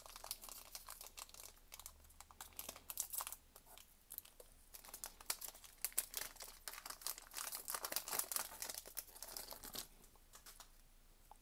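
A foil trading-card booster pack being crinkled and torn open by hand, with the cards then slid out: irregular crackling and rustling that dies down near the end.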